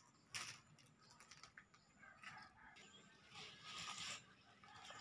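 Near silence, with a few faint light ticks and a soft scrape.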